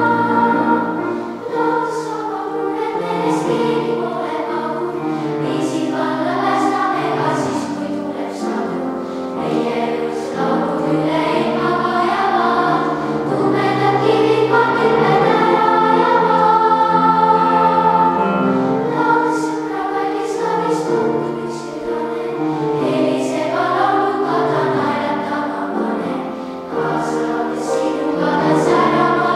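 Young children's choir of girls singing a song, held notes moving from phrase to phrase.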